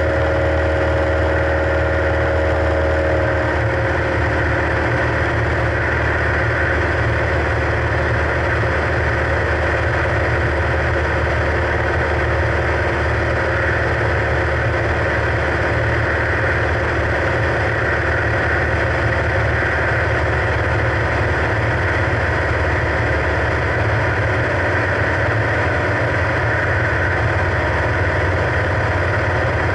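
Single-engine light aircraft's engine and propeller running steadily in flight, a constant low drone with rushing noise, heard from inside the cockpit.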